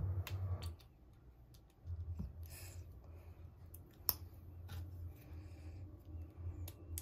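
Small plastic building bricks clicking as they are handled and pressed together, a few sharp clicks with the loudest about four seconds in, over a low steady hum.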